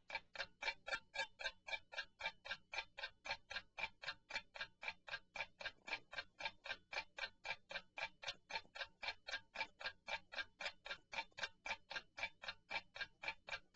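Ticking-clock sound effect counting down the time to answer a quiz question: a steady, even tick at about four ticks a second.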